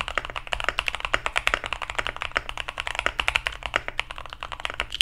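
Rapid, continuous touch-typing on a Neo80 mechanical keyboard fitted with Vertex V One switches and NK Sand keycaps. The board is built with a PC plate, all its foams and a two-layer tape mod.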